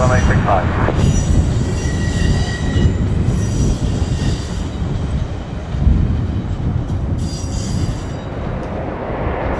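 Jet aircraft engines: a steady deep rumble with a high thin whine that fades in and out.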